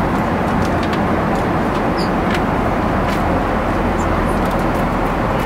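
Steady, even rushing cabin noise of a Boeing 777-200 with Pratt & Whitney engines in cruise, with a few faint light clicks.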